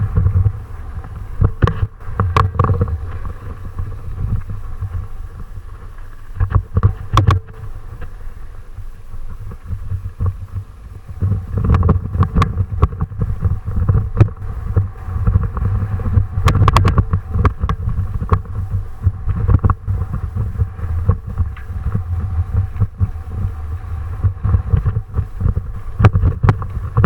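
Wind buffeting the microphone with a heavy low rumble during a fast downhill ride, broken by frequent sharp knocks and rattles from the rough descent. There is a faint steady whine underneath.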